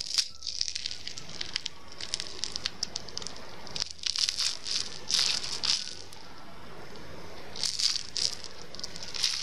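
Crisp, syrup-soaked lokma (fried yeast-dough balls) being pulled apart by hand: the crunchy fried crust crackles in several short bouts.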